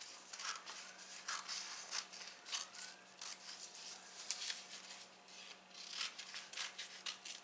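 Scissors cutting through stiff pattern paper: a run of short, crisp snips with paper rustling, as a sleeve pattern is slashed into strips.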